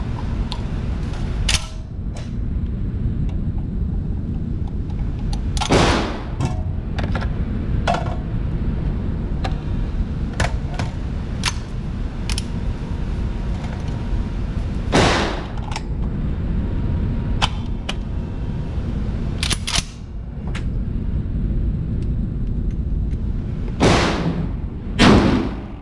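Several gunshots on an indoor range, single sharp reports a few seconds apart, the last two about a second apart near the end, over a steady low rumble. Small metallic clicks of a gun being handled come in between.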